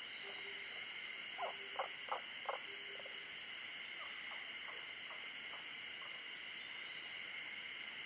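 Frogs calling at a forest pond: four short, sharp croaks in quick succession about a second and a half in, and fainter ones a few seconds later, over a steady high-pitched chorus.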